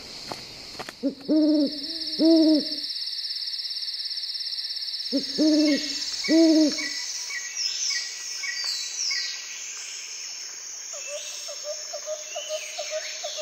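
An owl hooting twice in two-note pairs, a few seconds apart, over a steady high trill of insects.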